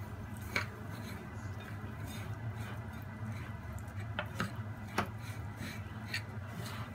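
Metal spoon clinking and scraping against a ceramic bowl while water is mixed into glutinous rice flour, with a handful of sharp clinks spread through, over a low steady hum.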